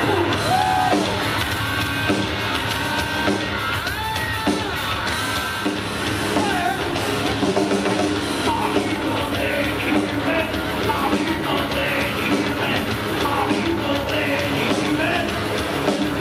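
Live rock music: a heavy band with drums and a singer, steady and loud throughout.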